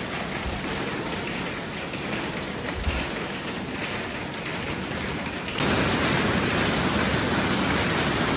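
Heavy rain falling steadily, a dense even hiss, becoming suddenly louder about five and a half seconds in.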